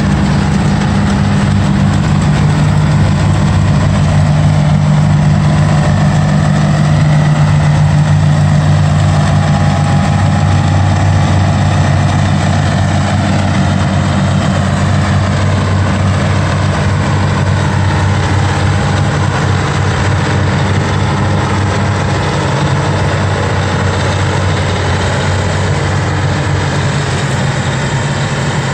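New Holland 2100 self-propelled forage harvester running steadily while chopping sorghum, its diesel engine and chopping gear at work. The deep engine note eases a little past the halfway point as the machine pulls away.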